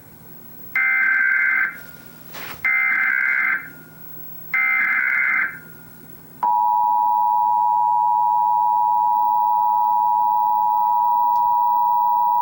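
Emergency Alert System national test: three one-second bursts of buzzing SAME header data tones, about two seconds apart. About six and a half seconds in, the steady two-tone EAS attention signal starts and holds.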